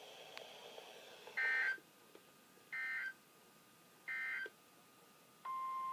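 Emergency Alert System end-of-message data bursts: three short, buzzy digital bursts about 1.3 s apart. Near the end a steady single-pitched beep tone begins.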